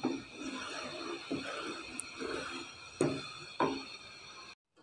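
Sugar syrup being cooked in a pan: a faint steady hiss with about four soft knocks of a spoon against the pan. The sound cuts off abruptly just before the end.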